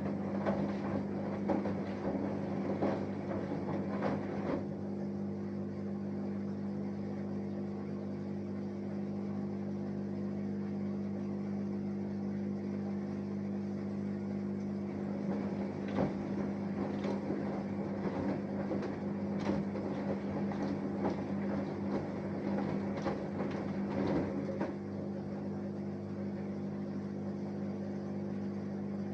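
Samsung Eco Bubble 6.5 kg front-loading washing machine with an inverter motor running a wash cycle: a steady hum, with bouts of irregular sloshing and rustling from the tumbling drum at the start and again in the middle.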